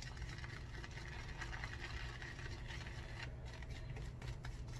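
Faint, soft wet swishing of a synthetic shaving brush whipping tallow shaving soap into lather in a bowl, over a low steady hum.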